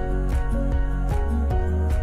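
Background music: a melody of plucked notes over a sustained bass, with a steady beat.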